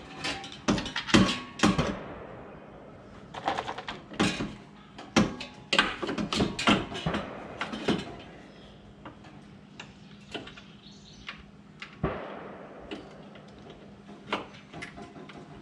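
Irregular metallic clanks and knocks of exhaust parts being handled and fitted: the AWE mufflers and band clamps going onto the exhaust pipes. The knocks are thick in the first half, then come only a few at a time.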